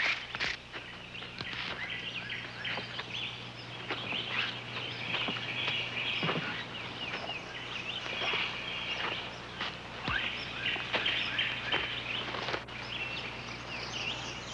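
A dense chorus of birds calling and chattering, many short high calls overlapping, over a steady low hum.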